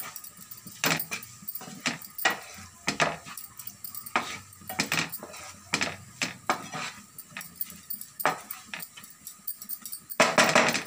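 Wooden spatula scraping and knocking against a non-stick frying pan as masala-coated prawns are stirred, in irregular short strokes. A louder clatter comes near the end.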